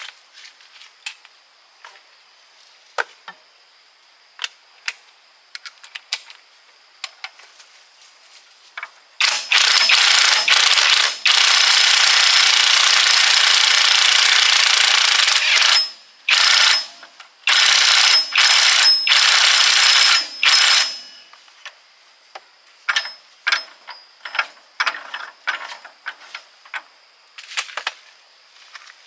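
Light metallic clicks and clinks of gearbox parts being handled, then a loud power tool run in one long burst of about seven seconds, followed by five short bursts and more clinks.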